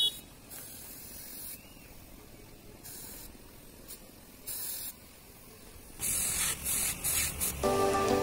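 Compressed-air paint spray gun hissing in short bursts as it is triggered on and off. The first bursts come a second or two apart, then several quick bursts close together about six seconds in.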